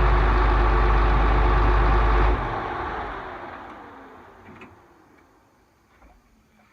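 Heavy vehicle engine idling steadily, then switched off about two and a half seconds in. Its deep hum cuts out at once while the rest of the sound winds down over the next few seconds, leaving a few faint clicks.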